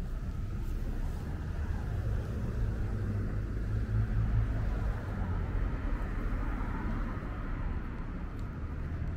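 City street traffic: a motor vehicle drives past, its low engine and tyre rumble swelling about midway and then easing.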